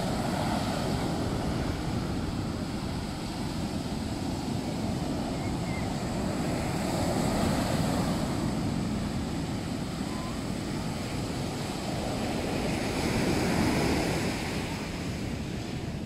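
Surf breaking on a sandy beach, a steady rush that swells louder as bigger waves break, with wind buffeting the microphone.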